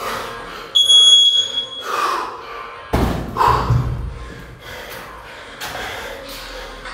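A steady electronic timer beep lasting about a second, which marks the end of the timed snatch set. About three seconds in, a 24 kg steel competition kettlebell is dropped onto the gym floor with a single heavy thud.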